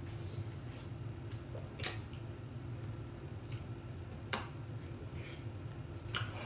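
Eating noises: four short, sharp clicks, spread out over several seconds, from utensils and the mouth while eating, over a steady low hum.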